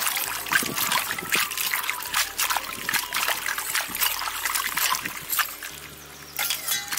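Hands swishing and rubbing Malabar spinach (poi) leaves in a steel bowl of water, with irregular splashing and dripping as the soil is washed off the leaves. The splashing eases off briefly near the end.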